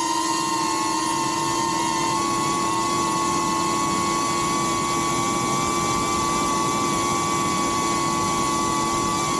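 DJI Avata 2 quadcopter drone's propellers whining steadily in flight, several close tones from the rotors running at slightly different speeds, wavering a little in pitch near the end.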